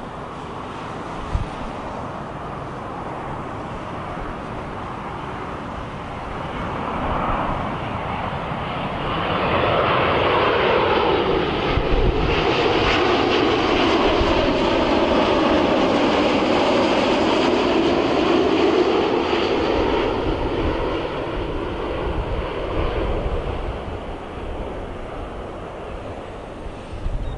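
Qantas Boeing 787-9's Rolls-Royce Trent 1000 turbofans on final approach, passing low overhead: the engine noise builds to a loud rush, its tone falls in pitch as the jet goes past, then fades as it heads away toward the runway.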